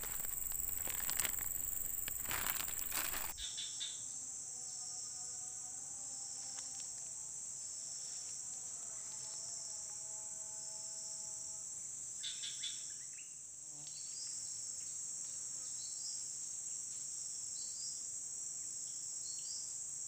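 A steady, high-pitched insect chorus drones without a break. Rustling and handling noise covers the first three seconds or so, and a few light clicks come about twelve seconds in.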